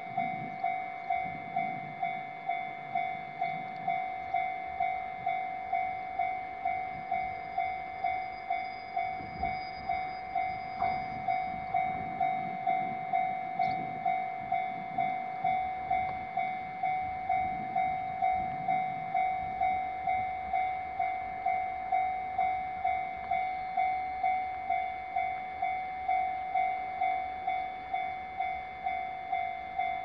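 Japanese level-crossing warning alarm ringing: an electronic bell striking an even, steady tone about one and a half times a second, which means a train is approaching.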